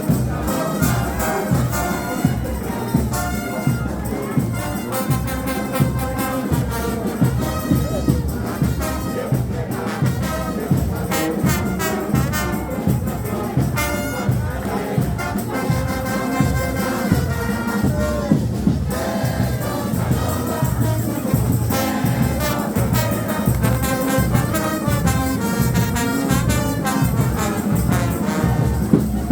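Frevo orchestra playing: trumpets and trombones carry the tune over a fast, steady drum beat.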